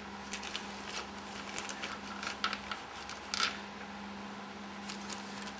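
A small plastic zip bag crinkling as it is handled and emptied, with scattered light clicks of small metal valve parts knocking together and onto a wooden bench; a steady low hum runs underneath.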